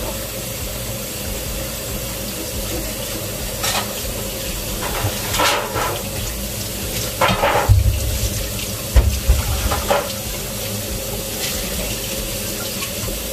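Kitchen tap running steadily into a sink, with dishes knocking and clattering several times in the middle.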